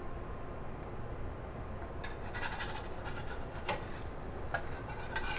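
A spatula scraping and tapping against a cast-iron skillet as a frying egg is turned over easy: a few quick scrapes and clicks starting about two seconds in, over a low steady hum.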